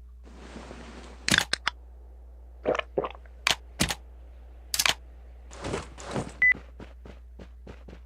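Irregular sharp knocks and clicks, about a dozen, with a few short rustling noises and a brief high beep about six and a half seconds in.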